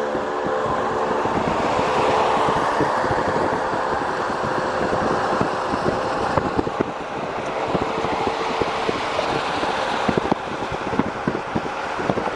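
Road noise from a vehicle driving along an expressway: a steady rush of tyre and wind noise with a faint engine hum and scattered small knocks.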